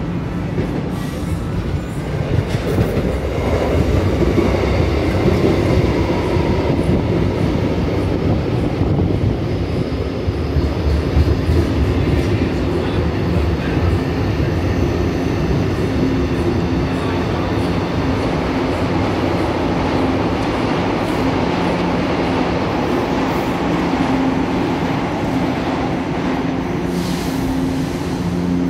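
São Paulo Metro fleet-H train running alongside the platform, its wheel and motor rumble loudest over the first half. Then it settles to a steady low hum.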